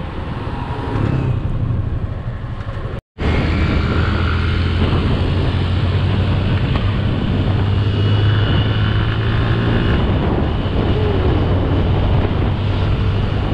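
Motorcycle engine running while riding at speed, a steady low hum under wind rush on the camera's built-in microphone. The sound drops out completely for a moment about three seconds in.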